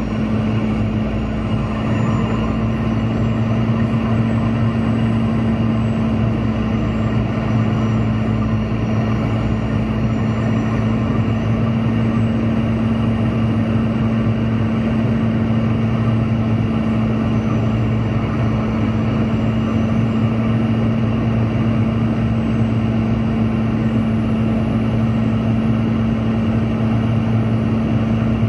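Steady drone of a Boeing 717 in flight, its two rear-mounted Rolls-Royce BR715 turbofans and rushing air forming an unchanging noise with a constant low hum.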